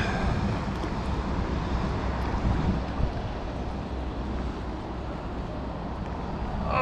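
Wind buffeting the microphone in a steady low rumble, over the hiss of heavy rain.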